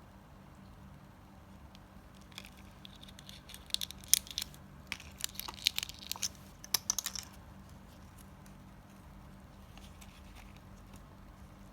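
Plastic packaging being crinkled and torn open by hand: a flurry of sharp crackles from about two to seven seconds in, then only faint rustling.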